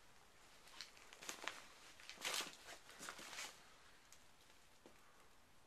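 Faint footsteps with scattered crackles and scuffs, the loudest a short scrape a little over two seconds in.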